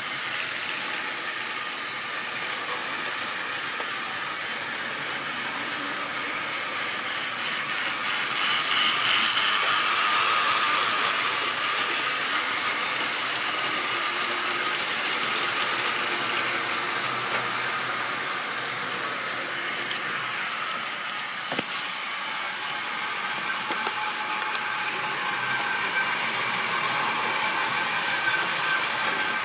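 Model railway trains running: the small electric motors whine and the wheels run on the track in a steady whirring noise. It grows louder about a third of the way through as a train passes close by. There is a single sharp click a little over two-thirds through.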